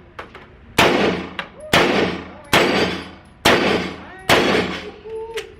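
Five gunshots fired at an even pace, a little under a second apart, each with a short echoing tail.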